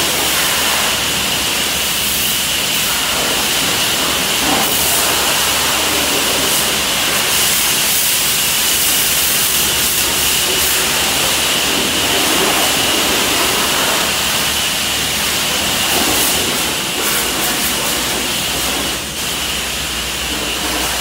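High-pressure water spraying from truck-wash wands onto a semi tractor's cab, a loud steady hiss of spray with a constant high tone running underneath.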